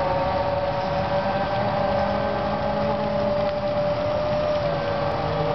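Raymond 71-SL60TN electric sideloader driving slowly, its drive motor giving a steady whine that dips slightly in pitch about four to five seconds in, over a constant hiss.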